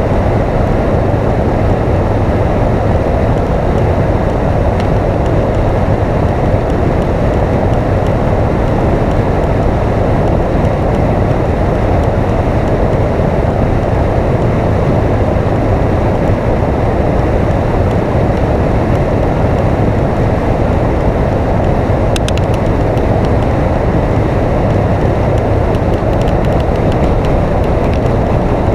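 Steady rush of wind and road noise from a motorcycle cruising at highway speed, with the engine's low drone underneath.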